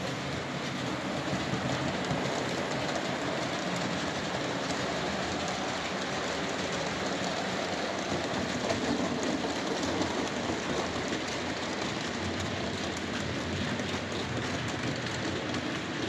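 Model railway train running on track: a steady rumble of the locomotive and wagons with fine, rapid clicking from the wheels on the rails.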